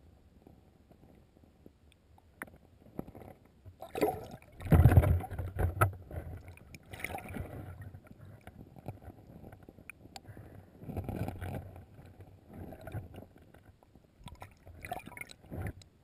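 Water sloshing and gurgling around a camera held underwater, heard through its housing, in irregular bursts with a few sharp clicks; the loudest burst comes about five seconds in.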